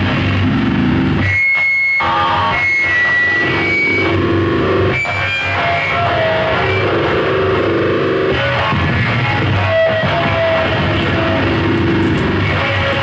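Loud harsh noise-music performance, a dense distorted wall of sound with short high squealing tones over it. The low end drops out briefly about a second and a half in.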